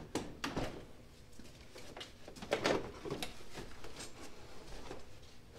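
Front bumper cover of a BMW E92 M3 being pulled free by hand: a handful of short, irregular knocks and scrapes, the loudest about two and a half seconds in.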